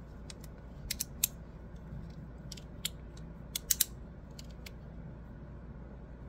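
Magnetic fidget slider clicking as its plates are shuffled and slid in the hand: scattered soft clicks at irregular intervals, with a quick cluster of three sharper clicks a little past halfway.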